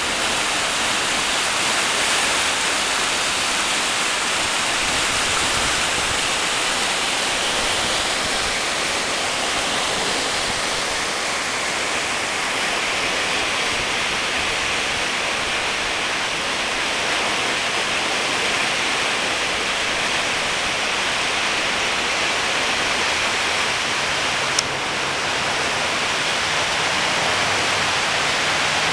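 Flood-swollen creek rushing steadily, its churning brown whitewater making an even hiss of moving water. One brief click about three-quarters of the way through.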